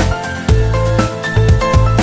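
Background music with a steady beat of about two strikes a second, a heavy bass line and melodic notes over it.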